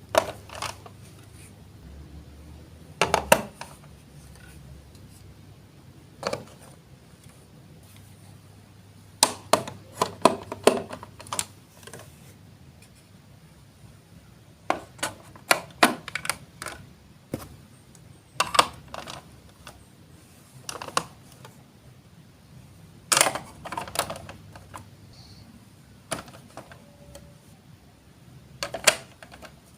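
Hard plastic clicks and clacks of a Lego Duplo brick marble run, coming in irregular clusters of sharp knocks with quiet stretches between.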